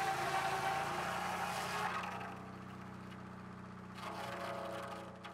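Small sawmill running: a steady engine hum under the whine of the saw cutting a log. The cutting is loudest for the first two seconds and swells again about four seconds in.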